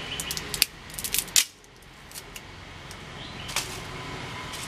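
Dry sticks snapped by hand into kindling: a quick run of sharp cracks in the first second and a half, then one more crack a few seconds later.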